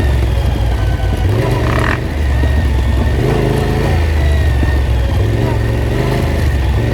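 Off-road vehicle engine running under load, its revs rising and falling again and again.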